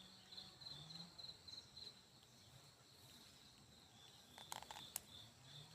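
Faint, evenly pulsing high chirps of insects, likely crickets, over near-quiet ambience, with a couple of sharp clicks late on.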